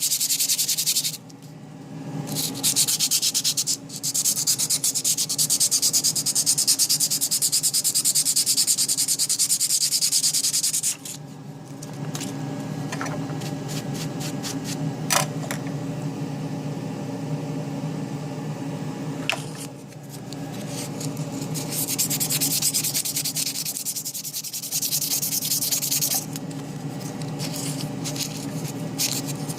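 Small CNC machine's spindle cutting a copper-clad circuit board: a steady hissing grind from the bit, with a motor hum underneath. The grind drops away briefly a few times as the bit stops cutting, and there are a couple of sharp clicks midway.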